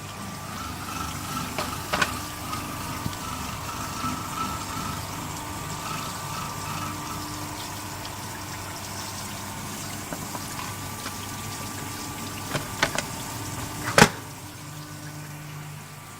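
Automatic straight knife grinder running: a segment grinding wheel works along a blade while coolant flows, giving a steady wet grinding noise with a faint whine and low hum. There are scattered light clicks, and one sharp knock about 14 seconds in is the loudest sound.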